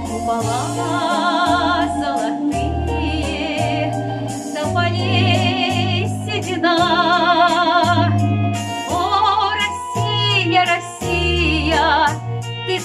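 A woman sings a slow Russian song in a full voice with strong vibrato, holding long notes over a backing track with a steady bass line.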